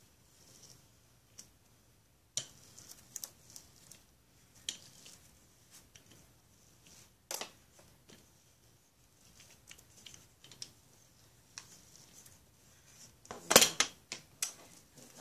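Plastic cling wrap crinkling and crackling in short, scattered bursts as it is pressed and smoothed down over wet paint, with a louder, denser run of crinkles near the end.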